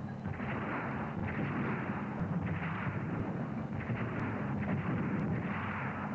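Cannon fire from warships as a battle sound effect: several overlapping booming shots and rumbling blasts that come in about five swells, dull, with no high end.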